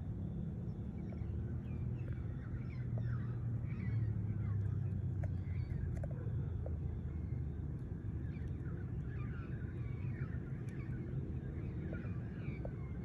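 Outdoor background: a steady low rumble with many faint, scattered bird chirps over it.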